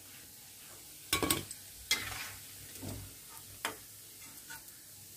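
A perforated metal slotted spoon scraping and clinking against a metal kadai as deep-fried gram-flour and soya fritters are lifted out of hot mustard oil, over a faint sizzle. There are a few sharp clinks, about a second in, near two seconds and again past three and a half seconds.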